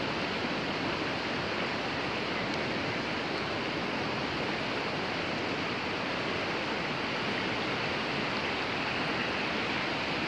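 A river in flood, overflowing its banks: a steady, even rush of fast-moving floodwater.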